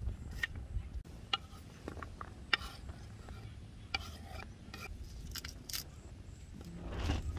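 A kitchen knife slicing red onion on a wooden cutting board: irregular sharp taps of the blade striking the board, over a steady low rumble. A louder sound swells just before the end.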